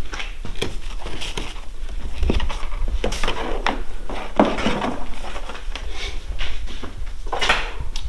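Scattered clicks and knocks of a bungee cord and its hook being unclipped and handled against a hard plastic kayak hull. Short rustling swishes come as the fabric cover is lifted and moved.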